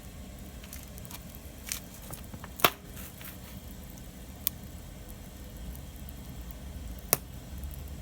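Campfire wood burning and crackling, with a few sharp pops: the loudest about two and a half seconds in, another near the end, over a low steady rumble.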